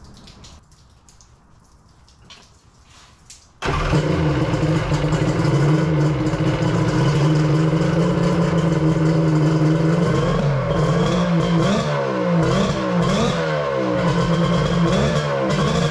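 Kawasaki 1100 three-cylinder two-stroke jet ski engine starts suddenly about three and a half seconds in and runs at a steady idle. From about ten seconds in the throttle is blipped again and again, the pitch rising and falling with each blip.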